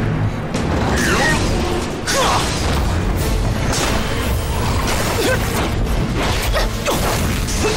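Dramatic soundtrack music under fight sound effects: repeated whooshes and sharp hits as the fighters leap and strike with a sword.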